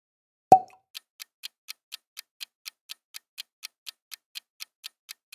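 Clock-ticking countdown timer sound effect, even ticks about four a second. It opens with a single sharp pop carrying a short tone about half a second in.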